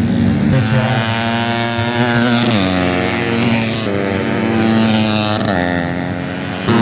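Tuned four-stroke 130 cc underbone racing motorcycles running at full throttle, the engine pitch climbing through the revs and dropping sharply at gear changes about two and a half and five and a half seconds in.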